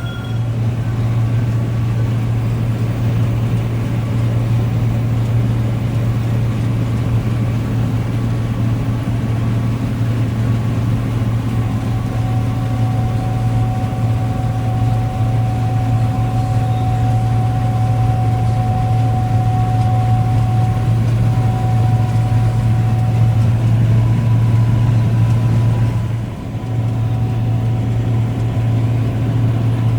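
Vehicle engine running steadily with a strong low hum and a faint whine that comes and goes; the sound dips briefly about 26 seconds in.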